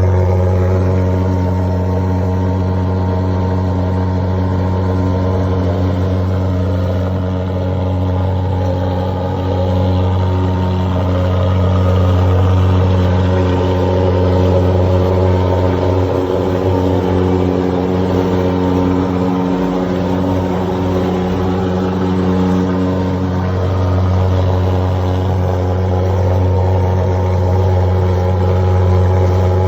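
Large-scale RC car's engine running steadily at a nearly constant speed, with a slight dip in level about halfway through.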